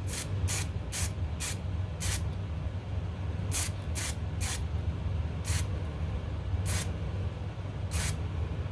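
A can of satin black spray paint hissing in about a dozen short bursts, quick spurts spaced irregularly, as a part is given a touch-up coat.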